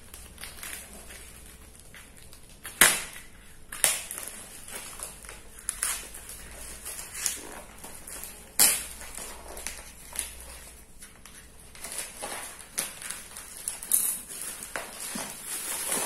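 A tape-wrapped plastic mailer being cut and torn open by hand: rustling plastic and tape with several sharp snaps and cracks at irregular moments, the loudest a few seconds in and near the middle.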